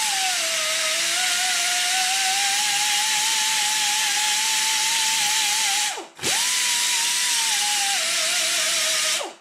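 Air-powered die grinder with a fine bit, grinding a high spot off a hardened mower-deck gearbox shaft. It runs with a steady whine over a hiss of exhaust air, its pitch wavering slightly with the load. About six seconds in it is let off briefly, the pitch dropping and then climbing back, and it spins down just before the end.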